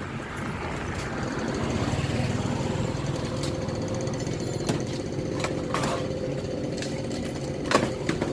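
An engine running close by, its rumble swelling about two seconds in and then holding steady, with a few sharp knocks near the end.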